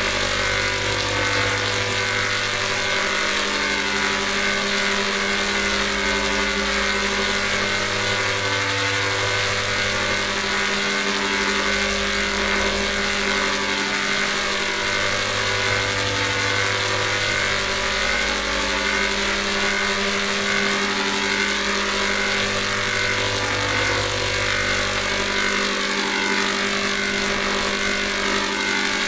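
Electronic sustained chord in G major: several held tones over a steady hiss, with a low bass note that alternates between two pitches about every four seconds.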